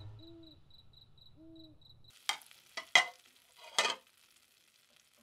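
Soft night ambience of faint, evenly spaced high chirps and two short, low hoots, then a utensil scraping and stirring in a cooking pot in four quick strokes about halfway through.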